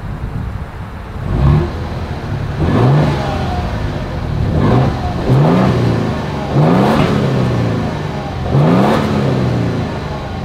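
2024 Toyota Tundra Limited's twin-turbo V6 heard at its stock single tailpipe, idling and revved in about six short blips, each climbing quickly and falling back to idle.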